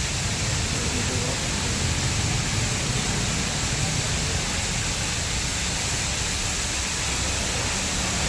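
Automatic bike washing machine spraying water from its jets: a steady hiss of spray over a low machine hum.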